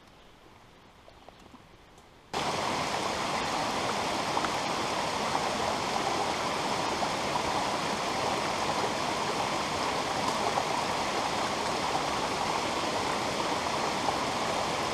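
A rocky mountain stream running over boulders, a steady rush of water that cuts in suddenly about two seconds in after a faint, quiet start.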